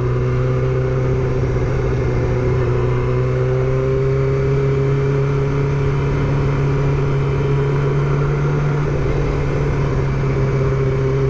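Motorcycle engine running steadily at moderate revs while riding slowly, its pitch drifting up a little and easing back, over road noise.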